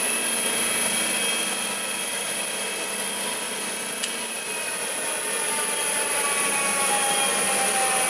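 GIBEN multi-function woodworking machine running steadily, a whirring noise with several faint tones, some slowly sinking in pitch in the second half. A single sharp click about four seconds in as a control on the machine is worked by hand.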